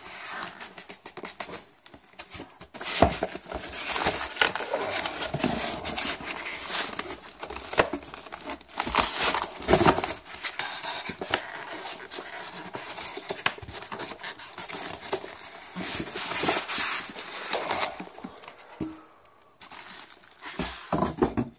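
Packaging being handled: plastic wrap crinkling and cardboard and styrofoam rustling and scraping, with many small crackles and knocks, as a boxed turntable is pulled from its shipping carton. It dies down near the end.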